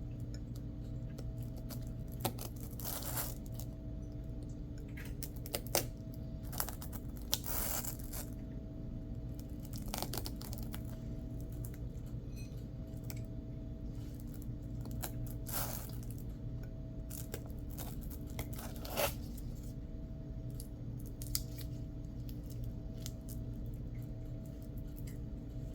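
Short, scattered rasping and tearing sounds with a few sharp clicks, from patch-making materials being worked by hand, over a steady low hum.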